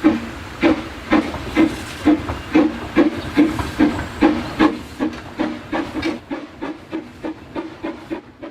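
Steam locomotive chuffing at a steady beat, about two exhaust beats a second. The beats quicken a little as it gathers speed and fade away as it draws off into the distance.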